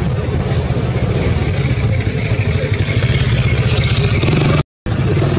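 An engine idling steadily, a loud low hum; the sound cuts out for a moment near the end.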